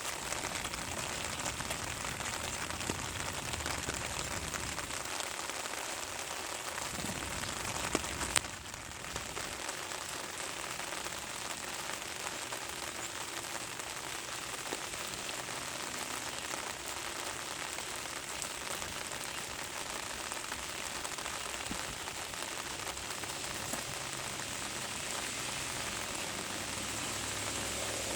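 Steady rain falling and pattering on the ground, with one sharp tap about eight seconds in.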